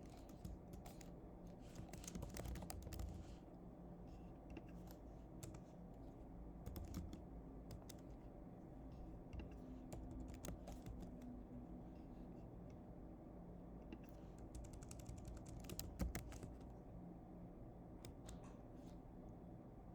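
Faint typing on a computer keyboard: keys clicking in quick spurts separated by pauses, busiest in the first few seconds and again a little past the middle.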